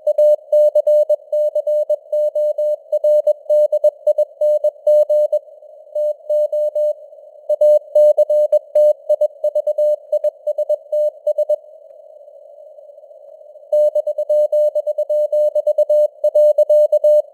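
Morse code (CW) sent at 21 words per minute: a tone of about 600 Hz keyed on and off in dots and dashes over a soft hiss of simulated radio noise, its strength fading up and down. The sending stops for about two seconds past the middle, then resumes.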